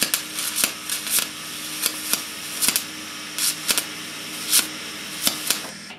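Wire-feed (MIG) welder arc crackling and spitting with frequent sharp pops while welding a bolt head to steel, its wire feed turned up a little; a faint steady hum runs under it. The arc cuts off just before the end.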